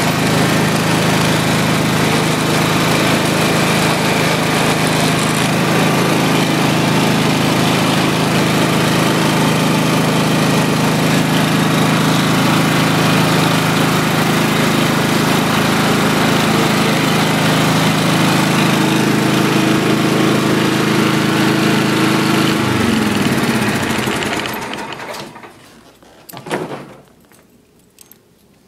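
John Deere LT155 lawn tractor engine running steadily, then shut off about 23 seconds in and winding down to a stop. A brief knock follows a few seconds later.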